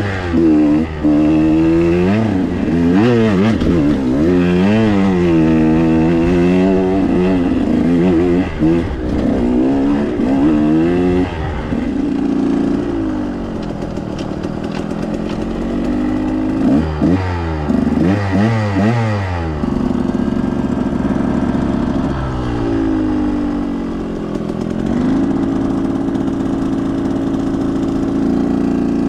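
2021 KTM 125 XC's two-stroke single-cylinder engine being ridden hard, revving up and down repeatedly, with steadier stretches of held throttle around the middle and near the end.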